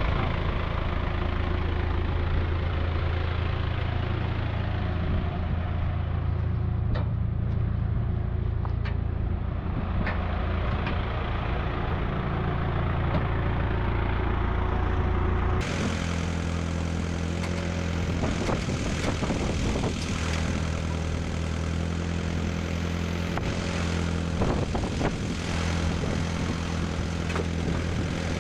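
Steady low mechanical hum from running machinery, with a few short knocks and clicks scattered through it. About halfway through the hum changes abruptly and turns brighter, with more knocking.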